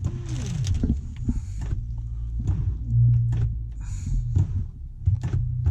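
A 2012 BMW X5's sunroof motor humming low, with a brief louder swell about three seconds in, among sharp clicks from the overhead switches. The roof gets power but does not open, probably frozen shut by ice around the seals.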